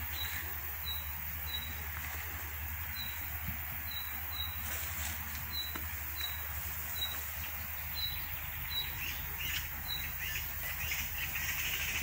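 Forest birdsong: a bird repeats a short, high chirp at an even pace, about one and a half times a second, and other birds add quick chirps near the end.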